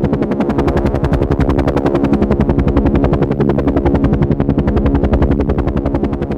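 Helicopter in flight: the rotor makes a fast, even chop over a steady engine drone.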